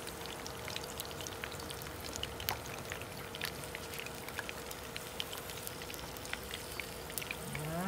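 Marinated milkfish frying in very hot oil in a pan: a steady sizzle dotted with many small sharp pops and spits of the oil.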